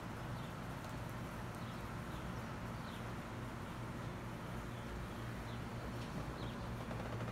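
Outdoor background: a steady low hum, with a small bird chirping faintly a few times, each chirp short and sliding down in pitch.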